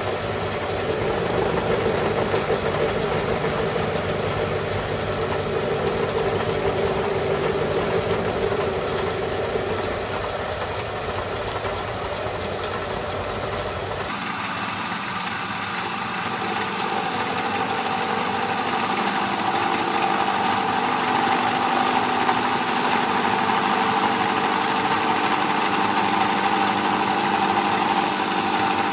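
Home-shop metal lathe running steadily while facing a hub. About halfway through, the sound of the running changes abruptly: the deep rumble drops away and a steadier, higher hum takes over.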